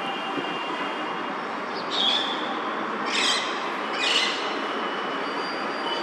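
Alexandrine parakeet giving three loud, harsh calls about a second apart, the first about two seconds in, over a steady background hiss.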